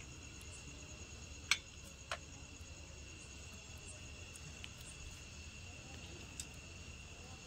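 Crickets chirping steadily as one continuous high tone. Two sharp clicks come about a second and a half and two seconds in.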